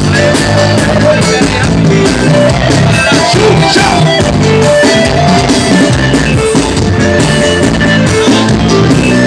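Live forró band music played loudly over a concert PA, heard from within a large crowd, with a steady beat, sustained melody notes and some singing.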